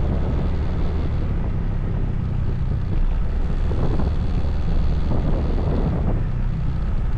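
Motorcycle engine running steadily as the bike cruises, with wind rushing over the helmet camera's microphone.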